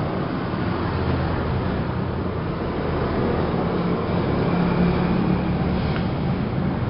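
Plastic-bag cutting and crushing machine running steadily: a continuous low motor hum under an even mechanical noise.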